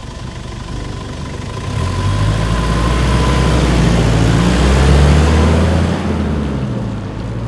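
Nissan Terrano II's 2.7-litre four-cylinder turbodiesel accelerating, rising in pitch and loudness, then falling away about six seconds in.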